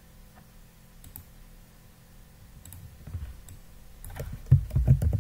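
Computer keyboard typing: a few faint clicks, then a quick run of loud keystrokes with a low thump to each, starting about four seconds in.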